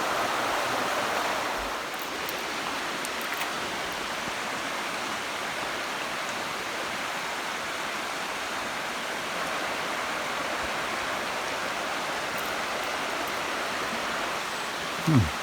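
Shallow Lyre River flowing, a steady rushing of water over its bed. Just before the end there is a brief, louder falling tone.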